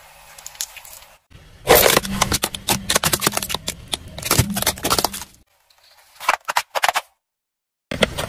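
Hard plastic toy pieces cracking and snapping under a slowly rolling car tyre: a dense run of sharp cracks lasting a few seconds, then a few scattered snaps.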